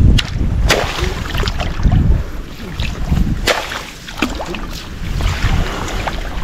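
Water splashing and sloshing as people wade and work in shallow muddy water, with several sharp splashes, over wind rumbling on the microphone.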